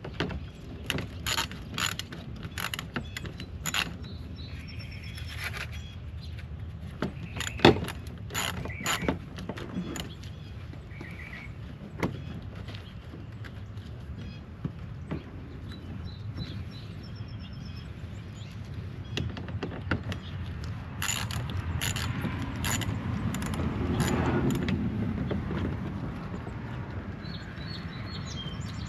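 Hand ratchet clicking in short runs as bolts are backed out of a car's plastic wheel-well liner, with a few sharp knocks between runs.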